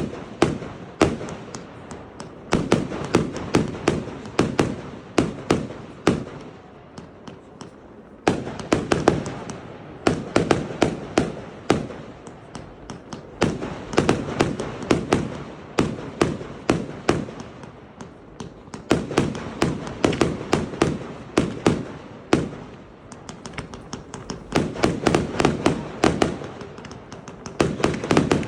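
Fireworks display: rapid, crackling sharp bangs in dense clusters, with short lulls between volleys.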